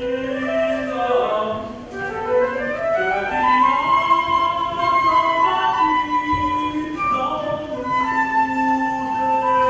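Concert flute playing a melody in a song accompaniment, with rising runs of notes.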